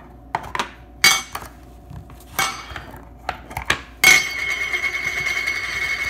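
Small canister of magnetic balls being handled: several sharp clicks and knocks, then from about four seconds in a continuous clattering, clinking rattle.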